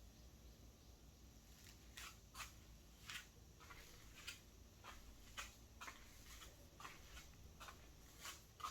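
Near silence: room tone with faint, irregular small clicks and taps.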